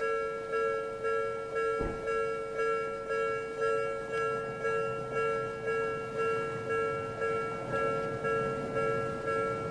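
Japanese railway level-crossing warning bell ringing, a metallic ding repeating about twice a second. A single short low thump about two seconds in.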